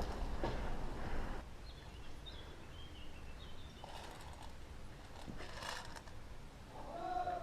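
Quiet outdoor background with faint high bird chirps.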